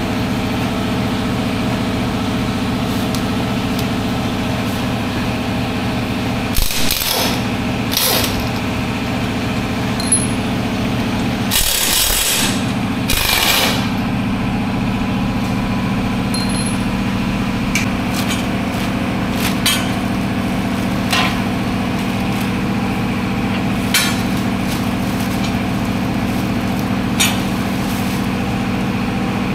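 Pneumatic air tool on a workshop air line, fired in four short hissing bursts about six to fourteen seconds in while bolts are worked at the motorcycle's engine-guard mounts. A steady machine hum runs underneath, and a few sharp metal clinks of tools come later.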